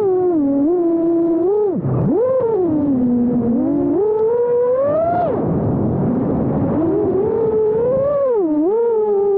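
5-inch FPV freestyle quadcopter's brushless motors whining, the pitch sweeping up and down steeply with the throttle. About halfway through the tone drops away briefly into a rushing noise, then returns.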